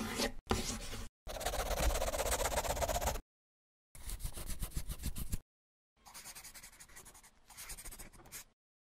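Pencil scratching on paper in six separate strokes with short silences between them. The longest, loudest stretch comes about a second in; the last two, near the end, are quieter and shorter, like handwriting.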